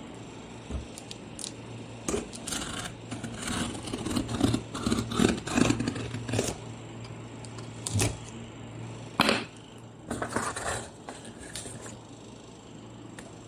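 A large cardboard parcel being handled and opened: irregular rustling, scraping and clicks, with a sharp knock about nine seconds in. A low steady hum runs underneath.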